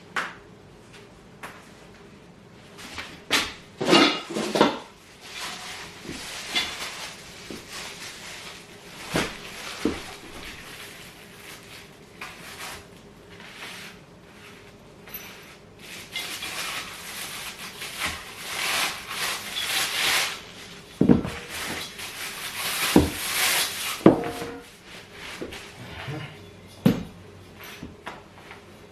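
Furniture parts being handled and fitted during assembly: irregular knocks and clatters, with stretches of rustling or scraping in between.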